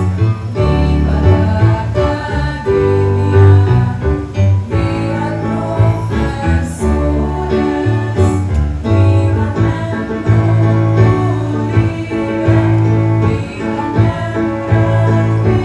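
Music with a choir singing and instruments over a strong bass line, played loudly through a sound system.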